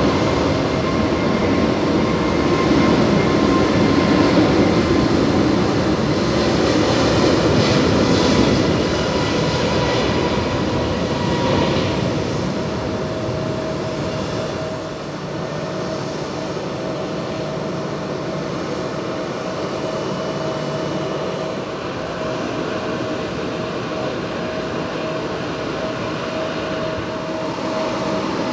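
Jet aircraft turbofan engines running at low taxi power: a steady rush with a thin whine. The rush is stronger for the first dozen seconds, then eases, leaving a steadier, quieter hum with a held whine.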